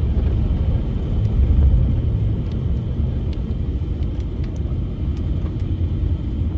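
Steady low rumble of a car driving along a road, heard from inside the cabin: road and engine noise.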